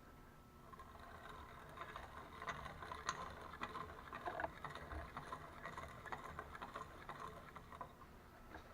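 Piston ring end being ground on a hand-cranked ring gap filer to open up the end gap: a faint, irregular rasping with many small ticks.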